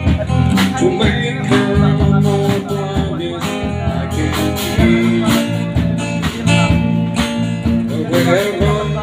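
Live band playing: a strummed acoustic guitar with electric bass and a drum kit keeping a steady beat.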